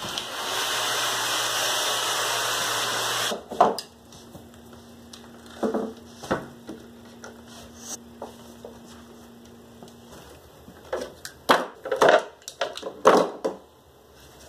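A shower running behind a glass door, a steady rush of spray that cuts off suddenly after about three seconds. Then scattered knocks, taps and rubs as a curved laminated wood panel and clamps are handled on a wooden workbench, busiest near the end.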